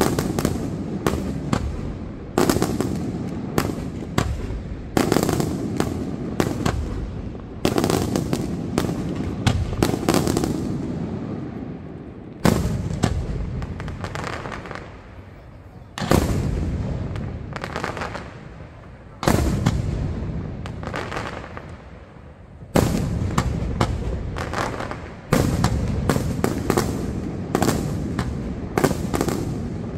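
Aerial fireworks shells bursting in rapid salvos: clusters of sharp bangs every few seconds, each trailing off in a rumbling echo, with short lulls between volleys.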